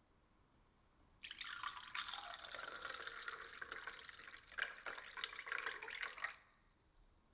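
A thin stream of fresh ginger-lemon-apple juice poured into a small glass tumbler, splashing and frothing as the glass fills. The pour starts about a second in and stops about a second before the end.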